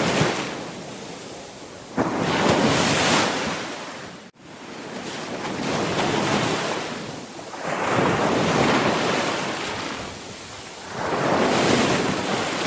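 Sea waves breaking and washing ashore, one swell of surf after another, each rising and falling away over a couple of seconds. A little over four seconds in, the sound drops out abruptly for an instant.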